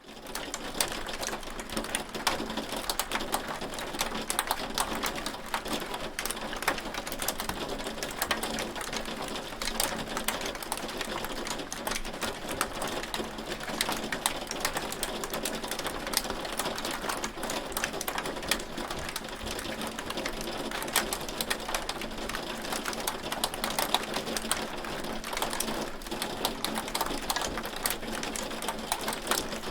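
Hail falling: a dense, steady patter of countless small sharp hits, with louder individual impacts scattered throughout.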